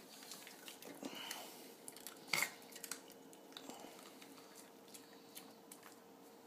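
Puppy chewing a treat, faint small clicks and crunches of its mouth, with one louder sharp click about two and a half seconds in.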